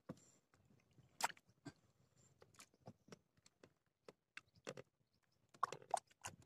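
Faint, scattered clicks and taps from hands handling bait and fishing tackle, with a sharper tick about a second in and a few quick taps near the end.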